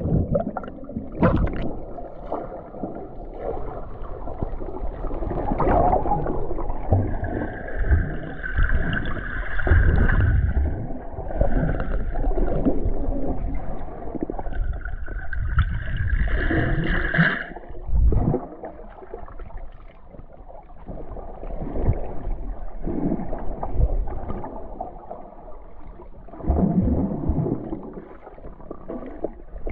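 Water sloshing and gurgling picked up by a camera held under water: an uneven, muffled low rumble with soft knocks as the swimmer moves. About a quarter of the way in, and again just past halfway, a wavering higher tone rises over it for a few seconds.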